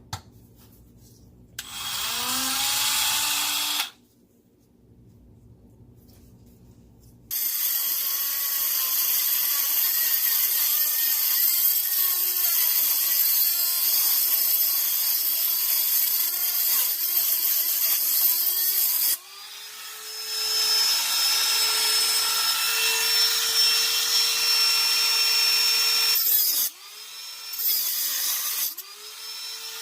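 Dremel rotary tool with a cutoff disc cutting into a seized exhaust Y-pipe bolt. It runs in bursts: a short spin-up about two seconds in, then a long run from about seven seconds in whose whine keeps dipping and recovering as the disc bites. Then comes a steadier, higher whine, and a last short burst that winds down near the end.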